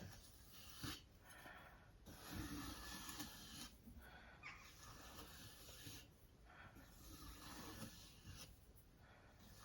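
Faint rasping strokes of a sharpening stone on a Tsprof Kadet guided sharpener, drawn along a chef knife's edge. Each stroke lasts one to two seconds, with short pauses between them.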